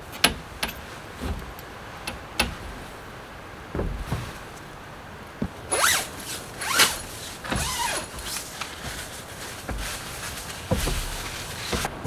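Tent being pitched: a few sharp clicks and knocks of tent poles and pegs on a wooden deck, then from about halfway in, tent door zippers pulled in several quick strokes.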